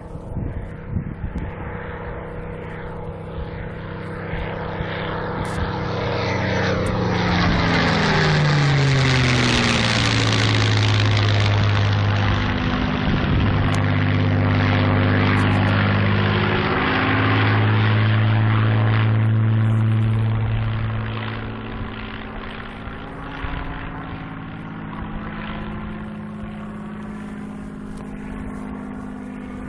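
Supermarine Spitfire's V12 piston engine passing overhead. The drone swells, drops in pitch as the aircraft goes by, stays loud for about a dozen seconds, then fades to a distant hum.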